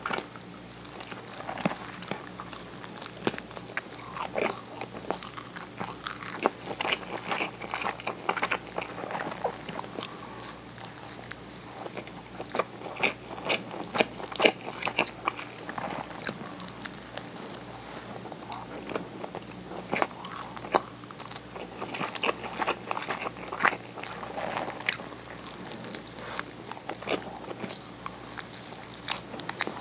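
Biting into and chewing a rice ball wrapped in nori seaweed close to a clip-on microphone: the sheet crackles and crunches irregularly between moist chewing sounds.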